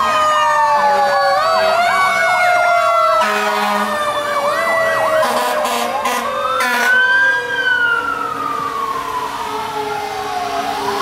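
Fire truck sirens sounding together as the apparatus pass: electronic sirens wailing and yelping in fast warbles, with a low horn blast about three seconds in. About six seconds in, one siren winds up quickly and then winds slowly down.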